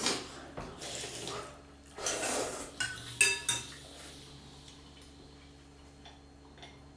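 Spoon and chopsticks clinking and scraping against ceramic bowls of noodle soup while eating, with two sharp clinks a little after three seconds in, then quieter.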